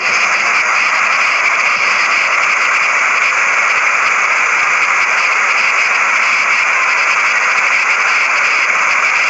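Fast-flowing floodwater rushing through a street in a loud, steady torrent.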